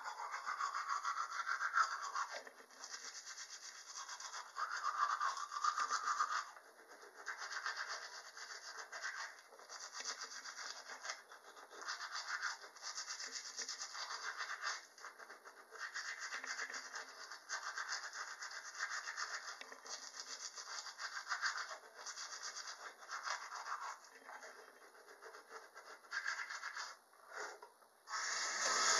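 Manual toothbrush scrubbing teeth: quick back-and-forth strokes in runs of a few seconds, broken by short pauses.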